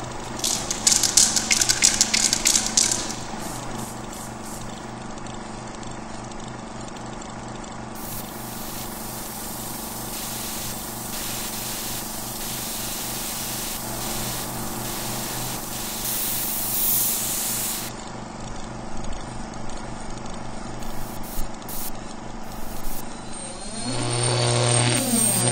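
Aerosol spray paint can hissing in bursts, with one long spray in the middle, over a steady low hum. Near the end, sweeping electronic music tones come in.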